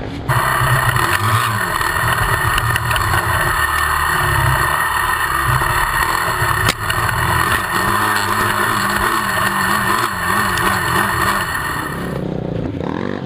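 A motor vehicle engine running and revving on a dirt trail, half buried under a loud, steady rushing noise on the action camera's microphone. The rushing starts and stops abruptly, with one sharp click about halfway through.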